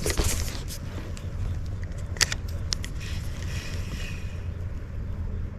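Low rumble of wind buffeting the microphone, with scattered sharp clicks and a brief cluster of clicks about two seconds in.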